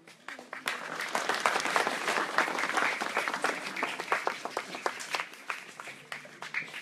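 A crowd claps and applauds. The clapping builds quickly about half a second in, is strongest in the first few seconds, and thins out toward the end.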